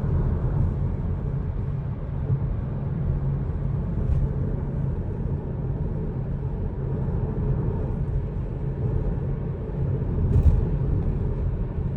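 Inside a moving car: a steady low rumble of engine and road noise. Two faint short sounds come through, about four seconds in and again about ten seconds in.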